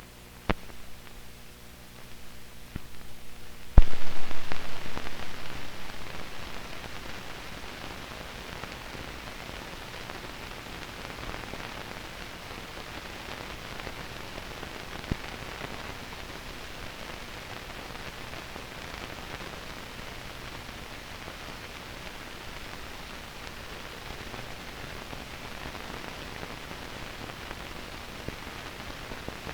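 Hiss and crackle of an old film soundtrack, with a sudden loud bang about four seconds in that fades away over several seconds.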